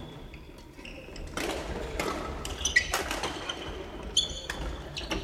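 Badminton rackets hitting shuttlecocks in sharp, echoing knocks, the loudest about three seconds in, with short high squeaks of court shoes on the wooden gym floor.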